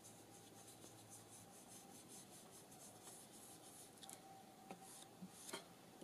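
Faint, quick swishing of an oval blending brush rubbing black ink onto a small paper card to tone down its white, with a couple of soft taps near the end.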